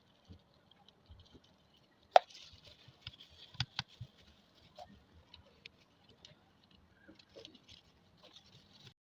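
Small clicks, taps and light scraping of sewing machine parts being handled during servicing, with one sharp click about two seconds in and a few more a second or so later.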